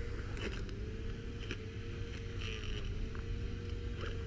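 Small electric motor of an RC crawler rigged as a weed cutter, whining at a steady pitch that wavers slightly, with scattered snaps and rustles from brush and sticks.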